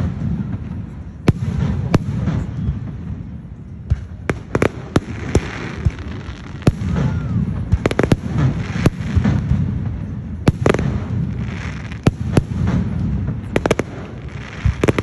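Aerial fireworks shells bursting overhead: a rapid, irregular series of sharp bangs, several close together, over a continuous low rumble.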